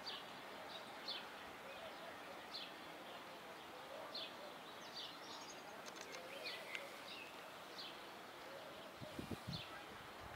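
Faint outdoor ambience: small birds giving short, falling chirps about once a second over a steady background hiss of distant city noise. A few low thumps come about nine seconds in.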